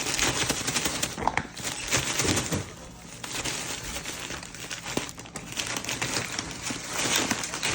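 Plastic packaging crinkling and crackling as it is handled and worked open by hand, with a dense run of small crackles.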